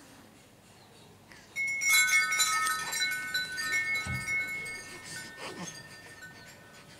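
Small metal chimes struck and ringing at several high pitches. The ringing starts suddenly about a second and a half in, is struck again a few times, and slowly dies away.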